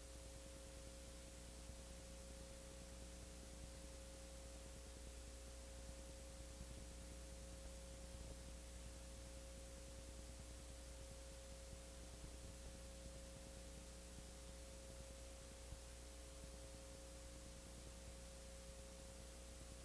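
Near silence: a faint, steady electrical hum over low hiss, with no other sound.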